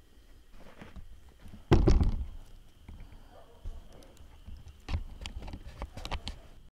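A heavy thump about two seconds in, then a lighter knock a few seconds later and a run of scattered clicks and knocks near the end.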